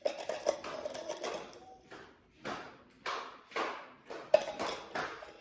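A spoon scooping and scraping in a bowl with sharp clinks as sugar is spooned in. It makes a run of short scrapes about half a second apart.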